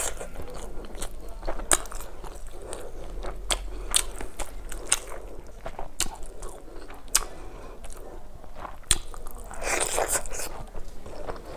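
Close-up chewing and biting sounds of rice, fish curry and cauliflower eaten by hand, with sharp wet mouth clicks every second or so. There is a longer, louder crunching patch about ten seconds in.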